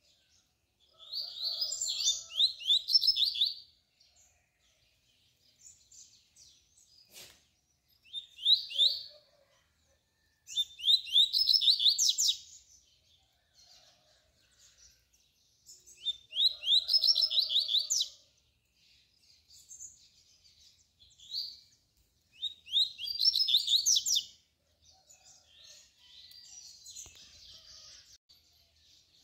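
Male double-collared seedeater (coleiro) singing the tui-tui song type that breeders use to tutor young birds: about five phrases of rapid high notes, each one to three seconds long, with pauses of a few seconds between them.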